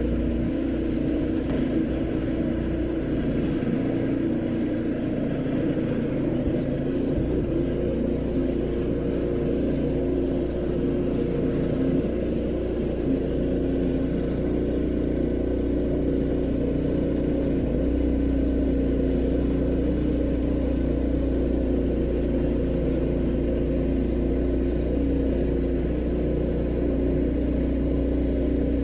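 Mini bike's small engine running at a steady speed, without breaks.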